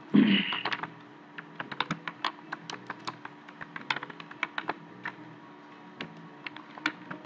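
Keystrokes on a computer keyboard, irregular clicks a few times a second, as a search query is typed, over a faint steady hum. A brief louder sound comes at the very start.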